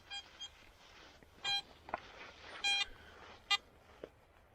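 Metal detector giving about five short beeps of the same pitch at uneven intervals as the coil sweeps over a buried metal target.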